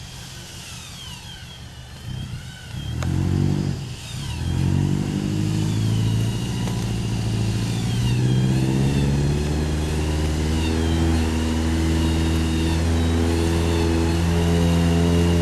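Off-road vehicle's engine revving about two seconds in, dipping briefly, then pulling steadily under load while slowly rising in pitch and getting louder.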